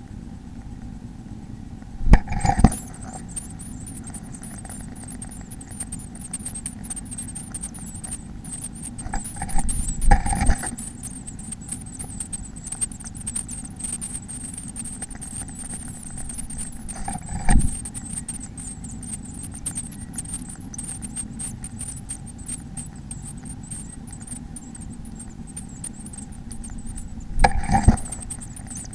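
Birds moving inside a nest box: four short bursts of scratching and knocking against the wood over a steady low hum and a thin, high, wavering tone.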